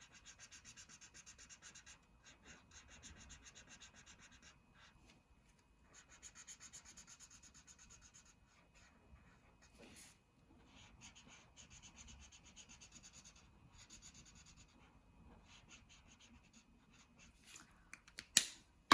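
Felt-tip marker colouring in on paper: fast back-and-forth strokes, faint, in spells of a few seconds with short pauses between.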